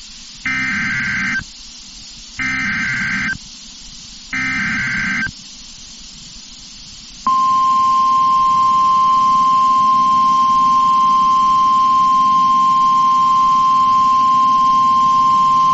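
NOAA Weather Radio Emergency Alert System activation: three short bursts of SAME digital header data, each just under a second, then about seven seconds in the steady 1050 Hz weather radio warning alarm tone begins and holds.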